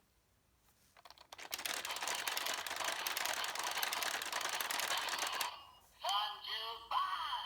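Rapid, dense plastic clicking for about four seconds, like a toy gear being spun against a ratchet. It is followed near the end by a short electronic voice call from a toy's speaker.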